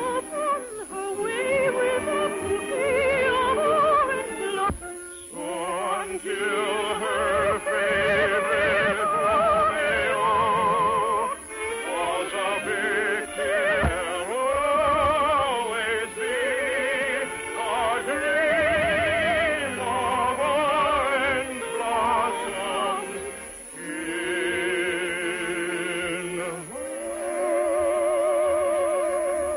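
Operatic singing over orchestral accompaniment, with wide vibrato and long held high notes. The old broadcast recording sounds thin, with little treble.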